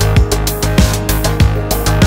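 Electronic background music with a fast, regular drum beat over heavy bass.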